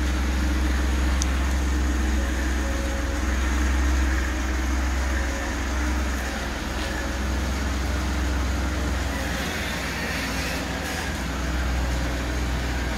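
A 2007 Jeep Wrangler's 3.8-litre V6 petrol engine running steadily with a constant low hum.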